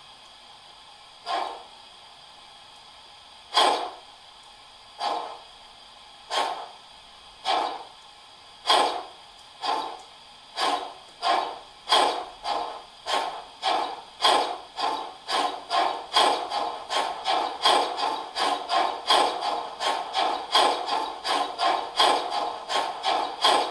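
Steam-exhaust chuffs from the ESU LokSound 5XL sound decoder of a 1:32 scale class 64 steam tank locomotive model, played through its loudspeaker in time with the turning wheels as it starts off. The beats come about two seconds apart at first and speed up steadily to about three a second, over a faint steady hiss.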